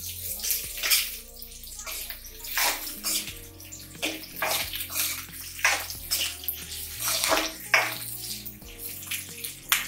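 Metal spoon scraping and stirring sliced onion, garlic and green chillies around an aluminium kadai over a high gas flame: about a dozen short swishing scrapes at irregular intervals. Background music with low sustained notes runs underneath.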